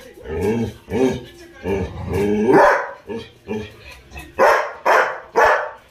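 Labrador retrievers barking: three loud barks about half a second apart near the end, after several drawn-out vocal sounds that rise and fall in pitch.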